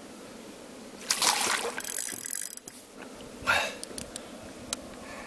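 Water splashing in a few broken bursts as a tiring hooked catfish swirls at the surface beside the boat, followed by a few light clicks from the spinning reel.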